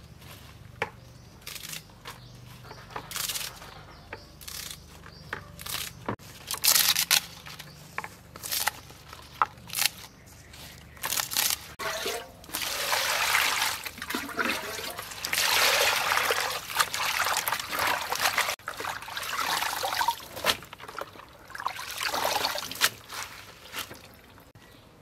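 Water splashing and dripping as leafy greens are rinsed by hand in a plastic basin, in irregular bursts that grow busier and louder from about halfway through.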